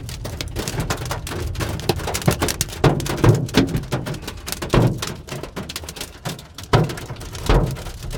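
Large hailstones pelting a car's body and windshield, heard from inside the cabin: a dense patter of hits with heavier thunks every second or two. The hail is big enough to crack the windshield.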